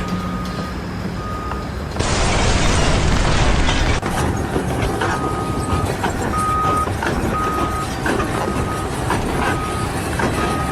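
A heavy vehicle's reversing alarm beeping about once a second over engine and site noise. It is broken early on by about two seconds of loud rushing noise.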